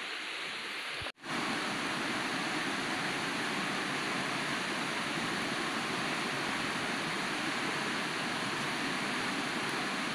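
Steady rushing of river water, an even hiss with no separate events, after a brief dropout about a second in.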